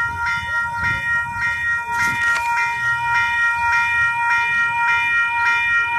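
Western Cullen Hayes level crossing bells ringing steadily at about two strokes a second, sounding the warning that a train is approaching the crossing. A brief rush of noise comes about two seconds in.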